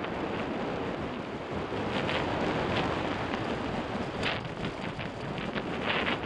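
Wind buffeting the microphone of a camera on a mountain bike descending a dirt singletrack, over the steady rush of tyres on the trail. From about four seconds in comes a quick run of short rattles and knocks as the bike goes over bumps.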